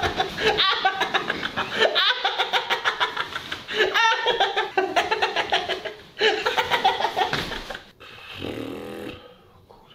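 Hearty laughter in rapid pulses, fading away about eight seconds in.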